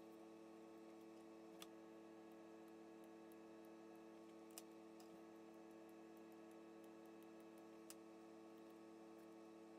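Near silence: room tone with a faint steady hum and three faint clicks spread through it.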